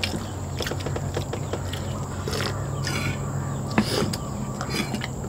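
A meal eaten by hand: small clicks and smacks of chewing and of fingers and utensils on plates. Behind it, a few short harsh bird calls and a steady low hum.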